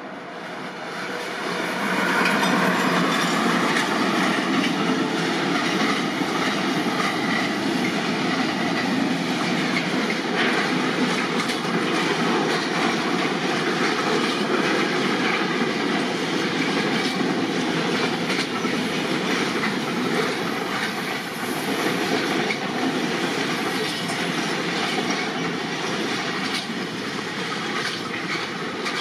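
A train passing close by on the line: the rolling noise of its wheels on the rails builds up over the first two seconds, then runs on loud and steady with many quick clicks from the wheels for the rest of the time, easing slightly near the end.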